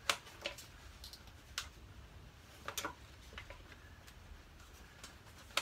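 Scattered light clicks and taps of hands feeling around a motorcycle's rear plastic bodywork and frame, a sharp click just after the start and a few softer ones after it.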